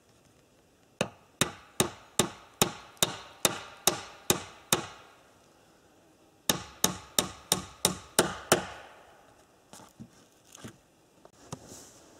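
Hammer driving nails into wooden boards: a run of about ten steady blows, a pause of a couple of seconds, then about seven more at a slightly quicker pace, with a few lighter taps near the end.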